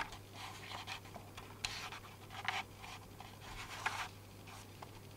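A string of soft scratchy rustles, about six, from a hand-held camcorder being handled, over the recording's steady low hum. There is a sharp click right at the start.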